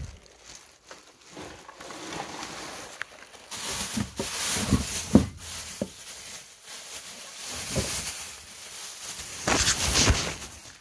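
Black plastic bags rustling and crinkling as things are rummaged through and shifted, with a few sharp knocks of objects being moved about halfway through and a louder burst of rustling near the end.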